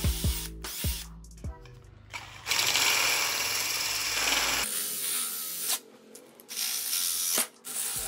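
A cordless drill with a hole saw cuts through a PVC pipe wall in two loud grinding runs, the first about two and a half seconds in and the second near six seconds, over background music.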